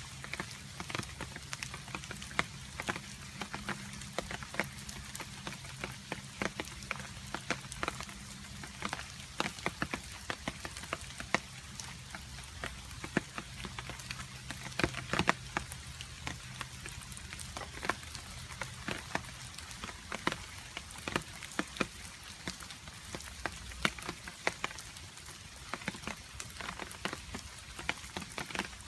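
Rain with water drops dripping, many irregular sharp drop hits over a steady hiss. A faint low hum runs underneath and drops out partway through.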